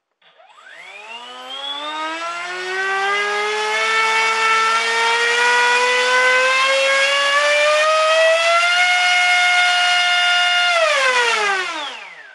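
Turnigy H3126 1300kv brushless motor driving a 7x6 APC-replica electric prop on a 5-cell LiPo: a whine that climbs steadily in pitch as the throttle comes up over about nine seconds, holds level for a couple of seconds, then falls away as the motor spins down.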